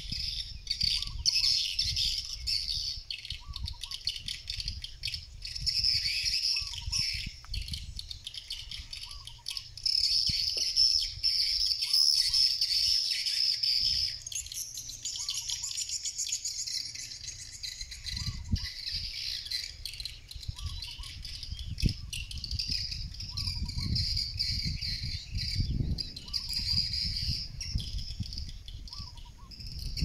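A flock of swiftlets twittering: a dense, high-pitched chirring that swells and fades, with a faint short call repeating about every two seconds. Wind rumbles on the microphone underneath.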